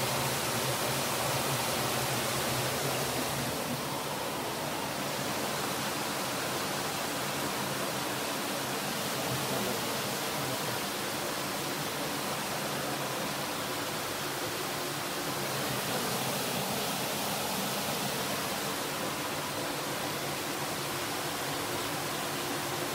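River water rushing steadily as it flows under the house.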